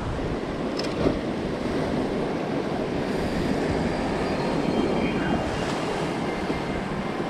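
Ocean surf washing steadily, with wind on the microphone and a light click about a second in.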